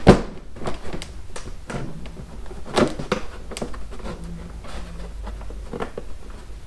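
Irregular knocks, clicks and scrapes of the trunk liner being pushed and fitted into a Harley-Davidson Tour-Pak, with a sharp knock just after the start and another about three seconds in.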